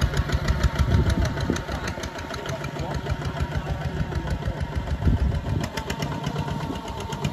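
A two-wheel walking tractor's single-cylinder diesel engine runs steadily with a rapid, even beat while pulling a plough through the soil. It grows a little fainter after the first second or two as the tractor moves away.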